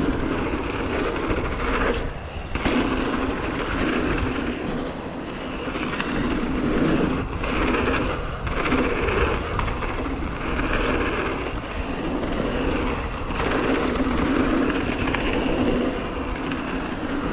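Hardtail mountain bike's knobby tyres rolling fast over hardpacked dirt, with wind rushing over the action camera's microphone. The noise swells and eases every second or two as the bike carves through berms and rollers.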